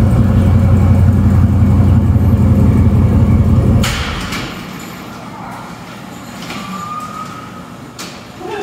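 Twin-turbo C8 Corvette V8 idling steadily, then switched off about four seconds in; the rumble cuts out abruptly. A sharp click follows near the end.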